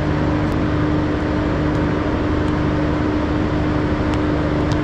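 Steady machine hum with one constant drone note and a fainter lower hum that comes and goes, over an even rush of background noise.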